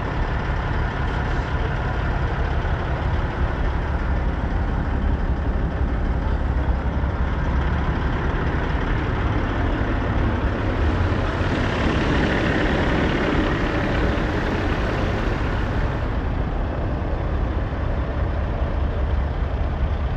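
Diesel truck engines idling with a steady low rumble, and a louder rush that swells about eleven seconds in and fades after about five seconds.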